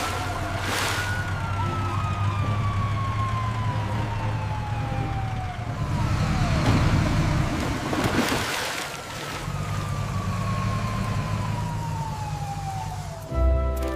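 Emergency vehicle siren in a slow wail: the pitch rises and then falls for several seconds, twice, over a steady low engine rumble, with a few short whooshes.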